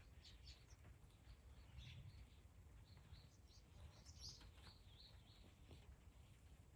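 Faint chirping of small birds: many short, high calls, a little busier about four seconds in.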